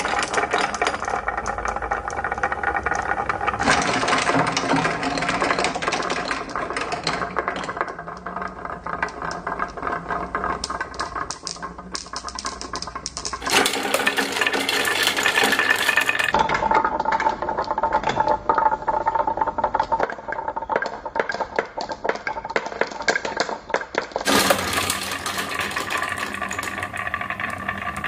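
Marbles and small toy vehicles rolling down wooden HABA ramp and track pieces, a continuous fast clatter and rattle of rolling and knocking. The sound changes abruptly several times.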